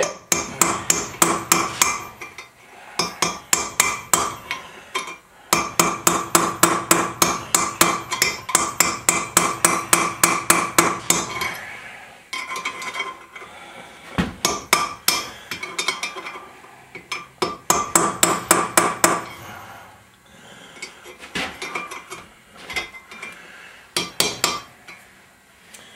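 Hand hammer striking a chisel set against a pressed-in valve seat in a cast iron Ford FE 427 tunnel port cylinder head, beating the seat out. The blows come in runs of ringing metal strikes, about three or four a second, with short pauses between the runs.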